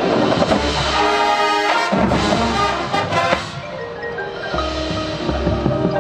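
Marching band playing, with front-ensemble mallet percussion (marimba, xylophone, glockenspiel) standing out over sustained low notes; the music eases into a softer passage a little past the middle.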